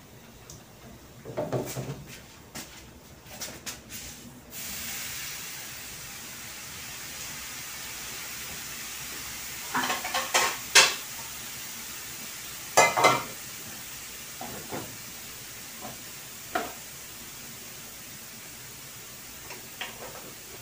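Metal pans and utensils clattering against a stainless steel stovetop, loudest twice about halfway through, over a steady hiss from a lit gas burner that comes on about four seconds in.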